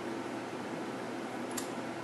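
Steady background hiss with a low hum, like a room fan or recorder noise, and one light click about a second and a half in.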